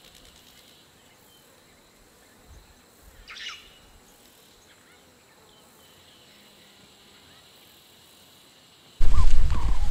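Quiet dry-bush ambience with a single short bird call a few seconds in. About a second before the end, a sudden loud burst of animal calls and noise cuts in.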